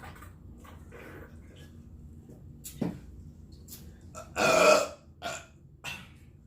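A person lets out one loud burp about four and a half seconds in, lasting about half a second, with a few shorter, quieter sounds around it.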